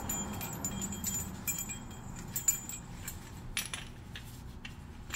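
Light metallic clinks and ticks of a steel brake caliper piston tool being handled and worked against the caliper, with the sharpest clink about two and a half seconds in.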